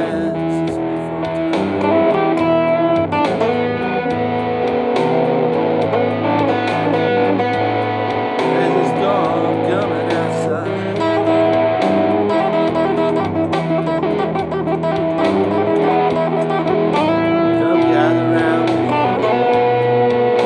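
Telecaster-style electric guitar played through an amplifier, a blues of chords and single-note lines.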